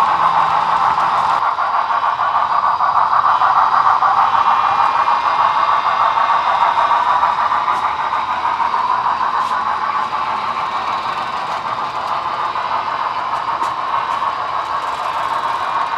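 Model freight train running along the layout track, a steady whirring clatter of small wheels on rail and drive motor, slowly getting quieter as the cars pass.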